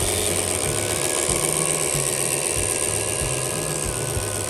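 WPL C74-1 RC car's electric motor and gearbox running with a steady fast rattling clatter and a thin whine that wavers in pitch. The rear driveshaft coupler is faulty, and the owner thinks it has come apart.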